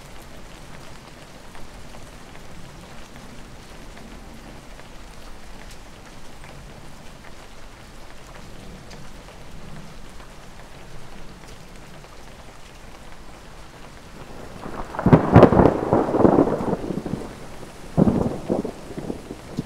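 Steady rain falling, with thunder: a long, loud rumble about three quarters of the way through and a shorter clap near the end.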